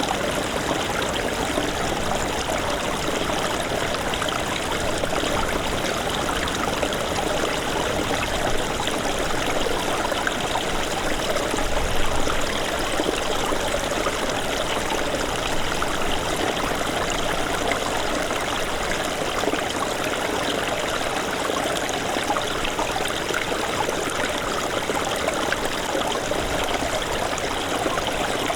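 Small snowmelt stream running steadily, a continuous rush and babble of water.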